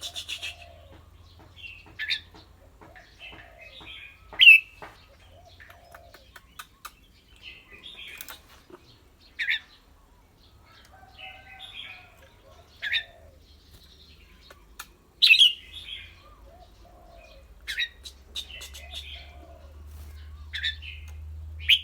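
Caged red-whiskered bulbul calling in short, bright notes every few seconds, with faint clicks in between.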